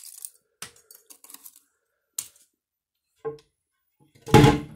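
Scattered light clicks and taps of brittle lime-scale pieces against a porcelain toilet bowl as they are handled, then one loud, short clatter near the end as a loose toilet seat is handled.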